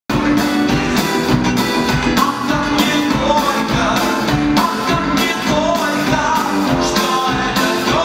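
Live pop-rock band playing: electric guitars, bass guitar, keyboard and drum kit over a steady beat, with a voice singing.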